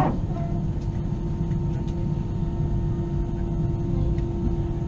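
Cabin noise of an Airbus A320 on the ground with its engines running: a steady low rumble with a steady hum.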